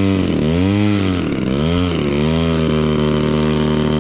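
Gas engine of a radio-controlled model airplane. Its pitch swells up and down about three times, then settles into a steady drone about halfway through.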